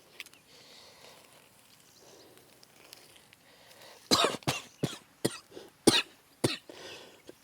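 A person coughing: a run of about six short, loud coughs starting about four seconds in, each one falling in pitch.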